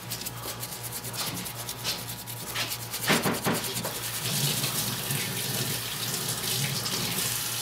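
A paintbrush dabbing and scrubbing over a plaster rock casting, with a few soft knocks about three seconds in. From about four seconds in, a steady rush of running water takes over.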